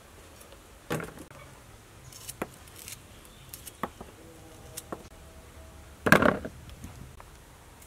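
A kitchen knife trimming bilimbi fruits held in the hand, a few sharp clicks as the blade cuts through. About six seconds in, the cut fruits drop into a plastic bowl with a louder clatter.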